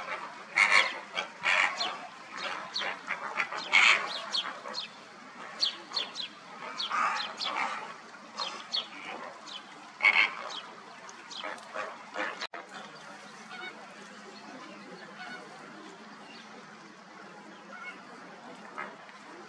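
Black-crowned night herons calling: a dense run of harsh calls mixed with many short, high, falling notes, which stops abruptly about twelve seconds in, leaving a fainter background with a few scattered calls.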